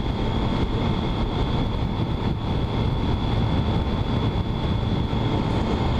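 Triumph Street Triple's inline three-cylinder engine running at a steady cruise, mixed with wind rush on the microphone.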